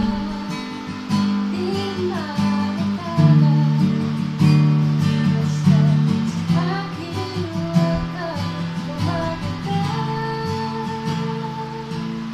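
Acoustic guitar played in steady chords while a voice sings a melody over it.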